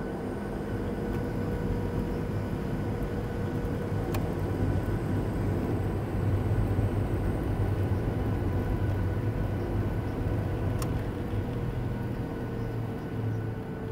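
Boeing 737-700's CFM56 jet engines running, heard from inside the cabin, as the airliner rolls along a wet runway. A steady deep hum with a few steady tones over it; the engine noise swells in the middle and eases slightly near the end.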